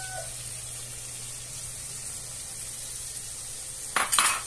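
Shrimp frying in butter in a pan, a steady soft sizzle. About four seconds in, two sharp clatters in quick succession.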